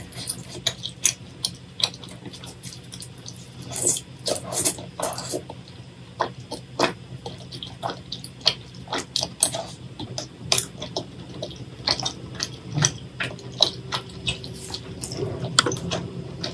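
Close-miked wet chewing and lip smacking of food in thick spicy tteokbokki sauce, a quick, irregular string of squelchy clicks, over a low steady hum.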